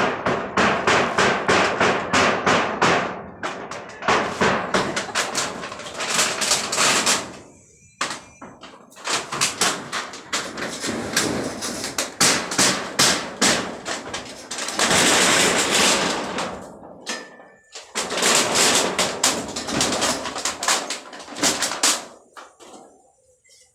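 Rapid, repeated hammer-like knocking and banging from workers dismantling a temporary site barracks, in runs of several seconds with short pauses between, fading out near the end.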